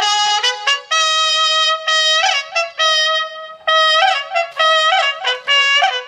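Telolet horn on a ride-on toy truck, blaring a tune through its two roof-mounted horn loudspeakers: a run of held notes with short breaks and a few quick upward slides between them.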